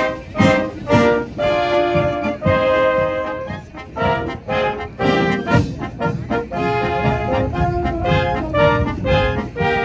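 Military brass band playing: tubas, trumpets and other brass holding full chords over a steady beat of about two accents a second.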